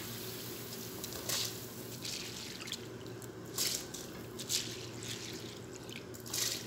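Water at a rolling boil bubbling in a pot, with several short splashes as handfuls of soaked rice and moong dal are dropped in.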